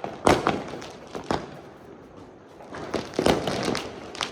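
Firecrackers going off: a series of sharp bangs at uneven intervals, each with a short echo, four louder ones and several fainter pops between them.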